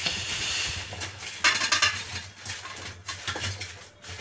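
Hands rubbing salt into peeled bitter gourds in a stainless steel bowl: wet rustling and scraping of the gourds against the steel, with a louder scrape about a second and a half in.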